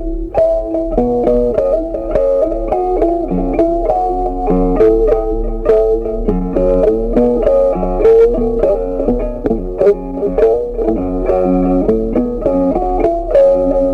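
Background music led by a plucked guitar, playing a steady run of quick notes.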